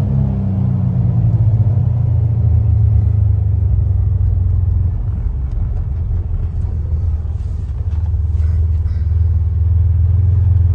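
Polaris Ranger Northstar 1000 side-by-side driving on pavement, heard from inside its sealed crew cab: a steady low engine and drivetrain rumble. The engine note falls over the first couple of seconds as the machine slows, then the rumble holds and grows a little louder again near the end.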